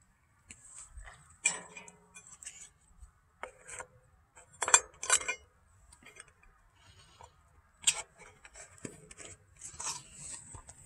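Handling noise: scattered small clicks, taps and rustles, with sharper clicks about a second and a half in, twice around five seconds in, and again near eight seconds.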